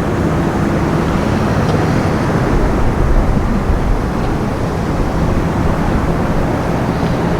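A steady, low engine drone with a rumble underneath, holding level throughout.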